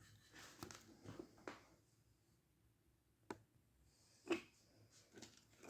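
Near silence with a few light clicks and taps from handling small soldering tools and parts on a workbench: several faint ones in the first two seconds, a sharp click about three seconds in, and the loudest tap a little after four seconds.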